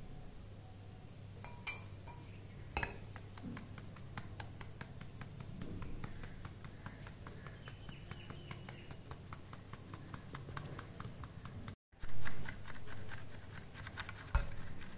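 Stainless steel mesh sieve shaken over a glass bowl to sift flour and baking powder: a fast, even ticking and scratching of the metal sieve, about six a second. Two sharp metal clinks come near the start, and a louder noise lasting about a second comes near the end.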